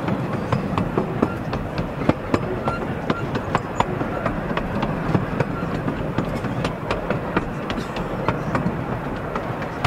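Miniature railway train under way, heard from an open passenger carriage: a steady rumble of wheels on the track with many sharp clicks and rattles, several a second, as the wheels cross rail joints and the carriage shakes.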